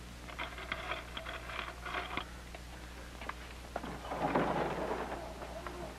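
Ice clinking and rattling as a piece is picked out by hand, a quick run of small sharp clicks, followed about four seconds in by a brief rustling noise, over a steady low hum.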